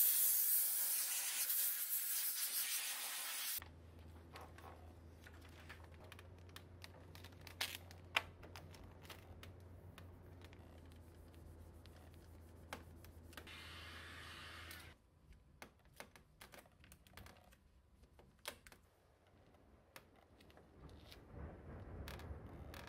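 Compressed-air blow gun hissing for about three and a half seconds, then cutting off sharply. After that come quieter scattered clicks, crinkles and rubbing of vinyl wrap film being handled and pressed onto a car's grille with a squeegee, over a low hum that stops about fifteen seconds in.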